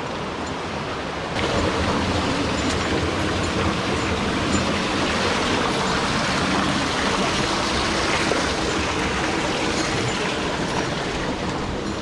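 Mountain stream water rushing steadily, growing louder about a second and a half in.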